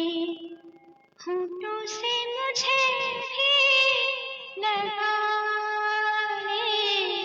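Music with a woman singing a slow melody in long, wavering held notes, with a short break about a second in.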